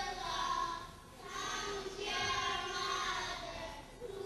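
Young children singing together in unison, long held phrases with brief pauses between them.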